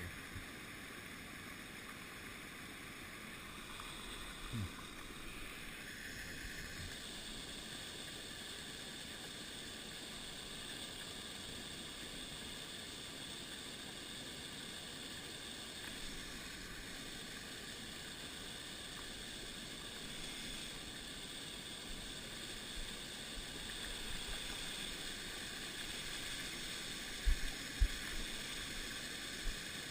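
Steady hiss of creek water running, with a few short low bumps near the end.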